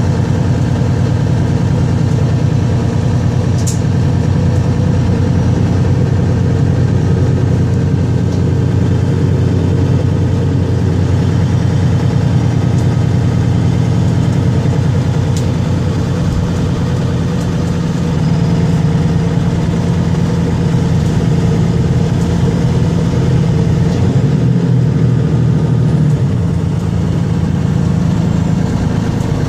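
Mercedes-Benz Citaro Facelift city bus heard from inside the passenger cabin while driving: steady engine and drivetrain hum with road noise. The engine note changes for a couple of seconds about 24 seconds in.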